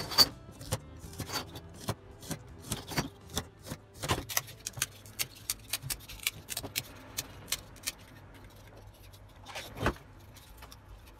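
Irregular clicks, taps and light scrapes of bench work: a steel ruler and craft knife on foam board and plastic pieces being handled and knocked on the bench, with a sharper knock just after the start and another near the end.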